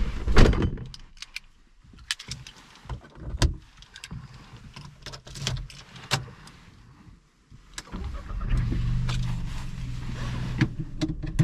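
A car door shuts with a thump about half a second in, followed by scattered clicks and knocks as the driver settles in and handles the key. About eight seconds in, the Seat Ibiza's 1.0 MPI three-cylinder petrol engine starts and settles into a steady idle.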